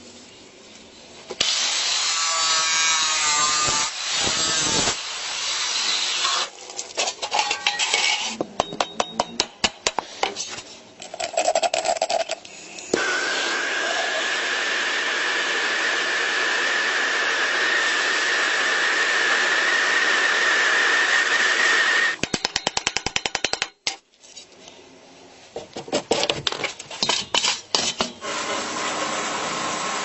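Metalworking on an old steel motorcycle fuel tank in quick cuts: spells of power-tool cutting and grinding noise and runs of rapid rattling, a long steady hiss with a high whine in the middle, and near the end the steady hiss of sandblasting.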